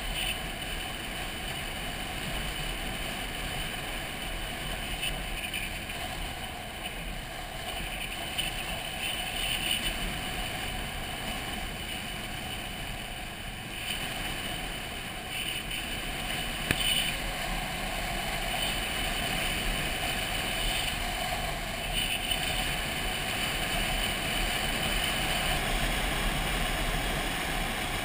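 Motorcycle riding at road speed, its engine under the rush of wind over the microphone, with one brief click a little past halfway.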